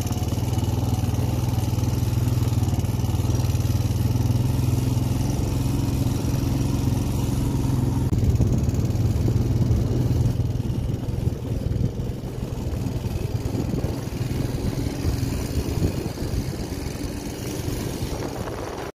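Quad bike (ATV) engine running while it is ridden, a steady low engine note that becomes less even about halfway through.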